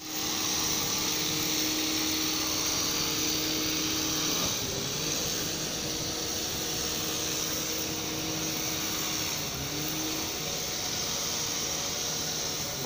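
Steady mechanical drone of an engine or motor running, with a held low hum over a constant hiss; the hum dips and shifts in pitch about four seconds in and again near ten seconds.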